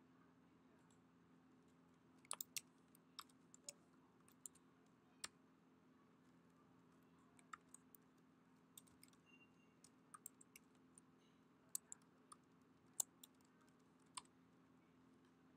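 Computer keyboard typing: sparse, irregular key clicks in two runs, one a couple of seconds in and a longer one from about halfway, over a faint steady low hum.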